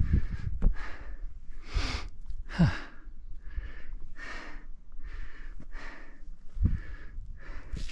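A hiker breathing hard and fast while scrambling over rock, about one to two loud breaths a second, with a couple of low thumps from steps or handholds.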